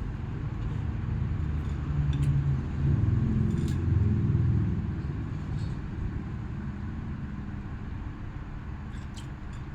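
A low rumble swells about two seconds in and fades after about five seconds. A few light clinks of dishes or cutlery sound over it.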